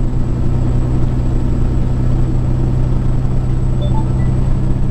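Peterbilt 379 semi truck cruising at highway speed, heard from inside the cab: a steady low engine drone with road and tyre rumble.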